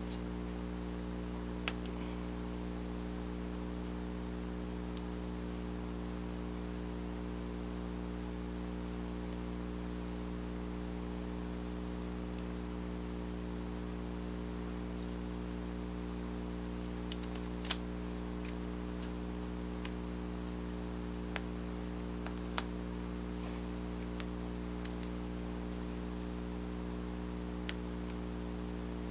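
Steady low electrical hum, with a few faint, sharp clicks spread out from a razor blade cutting grooves into craft foam on a cutting mat.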